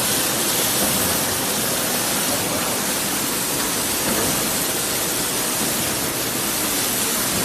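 Steady rushing noise from fruit processing machinery, like running water or blown air, with no clear rhythm or tone.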